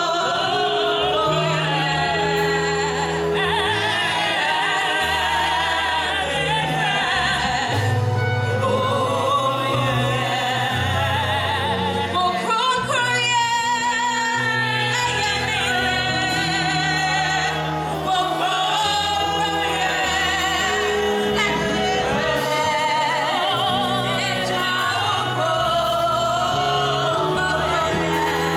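Church worship song: voices singing with vibrato over a band, with a bass line moving in held notes underneath.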